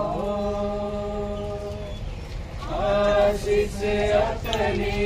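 Voices chanting in long, held notes. A new, louder phrase with more voices begins about three seconds in.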